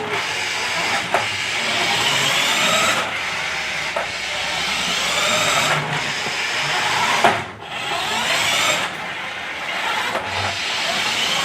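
Small electric motor of a remote-control toy car whirring, its pitch rising and falling as it speeds up and slows while being driven, with a few sharp knocks.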